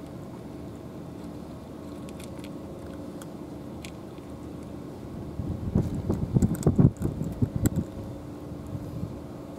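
A cat eating meat and dry kibble from a plastic tray: chewing and crunching, loudest in a run of rapid, irregular clicks and knocks for about two seconds past the middle. A steady low hum runs underneath.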